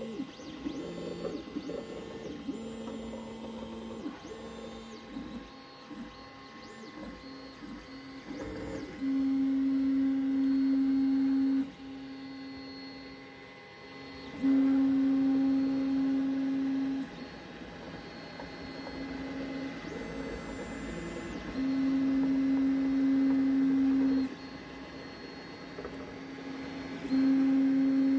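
Creality CR-X 3D printer running a print job, its stepper motors singing pitched tones as the print head moves. In the first part the tones are short and change quickly. After that come four louder, steady held tones of about two and a half seconds each, a few seconds apart, over a faint steady hum.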